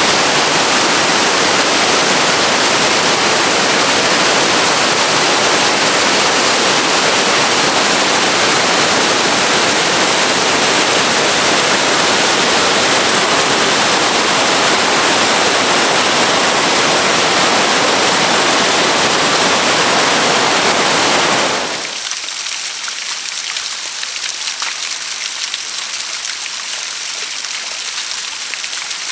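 Loud, steady rush of a large waterfall pouring onto rocks. About 21 seconds in it cuts to the quieter, splashier patter of a small cascade running down mossy rock.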